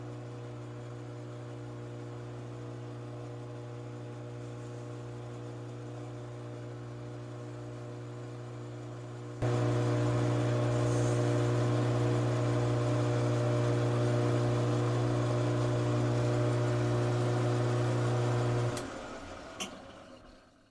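Metal lathe running with a steady motor hum, jumping abruptly louder about halfway through. Near the end it is switched off with a click and winds down to a stop, with one more click as it dies away.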